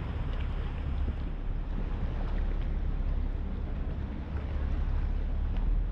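Harbour ferry underway: a steady low rumble from its engine, with wind buffeting the microphone.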